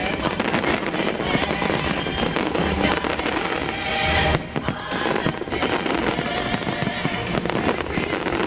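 Fireworks bursting and crackling in quick succession over loud show music, with low booms underneath.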